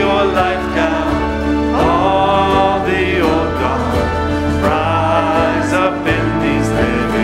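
Recorded worship song: singing over steady instrumental accompaniment.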